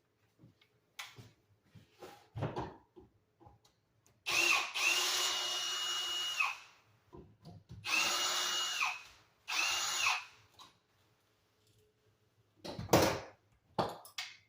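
Power drill/driver backing out the screws of an electrical wall outlet: three short runs of the motor, each whine spinning up and winding down. Small clicks and handling knocks fall between the runs, with a louder clatter near the end.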